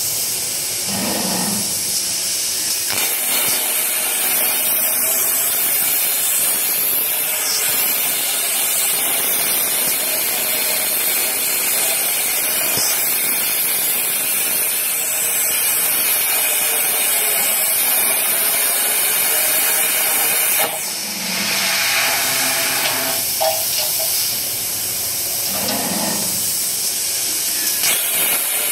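Plasma torch of a CNC pipe cutting machine hissing steadily as it cuts through square steel tube. The hiss shifts about three seconds in and again about two-thirds of the way through.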